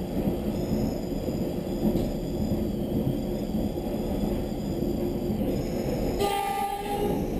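Electric suburban train running on the line, a steady rumble of wheels and track. Near the end a train horn sounds one note for about a second as another electric multiple unit passes on the adjacent track.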